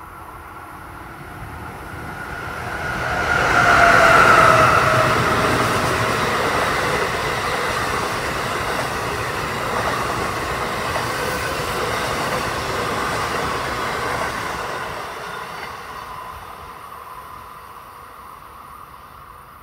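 Amtrak electric passenger train passing at speed. It builds as it approaches and peaks about four seconds in with a whine that drops slightly in pitch as the locomotive goes by. Then comes the steady rush of the cars on the rails, fading away over the last few seconds.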